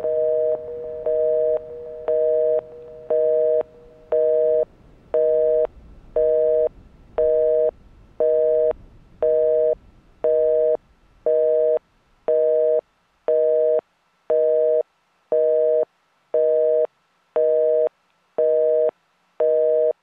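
Telephone busy signal: a two-tone beep switching on and off about once a second, with a faint low rumble underneath that fades out about halfway through.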